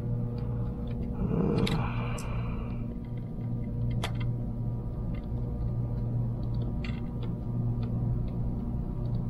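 A few light clicks and a brief scraping rustle of small plastic hair-dryer parts being handled, over a steady low hum.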